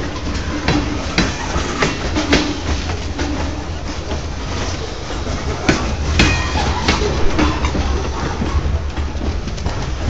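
CSX freight train of covered hopper cars rolling past close by: a steady rumble with irregular clanks and clicks from the wheels on the rails.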